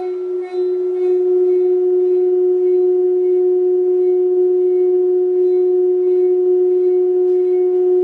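A round metal Chladni plate vibrating at a single frequency, sounding a loud, steady pure tone with a fainter higher overtone, as its vibration shakes the coloured sand into sharp-edged nodal patterns.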